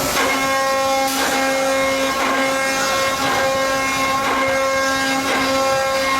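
Four-head CNC mortising machine running, its spindle motor giving a steady high whine, with a short cutting sound about once a second.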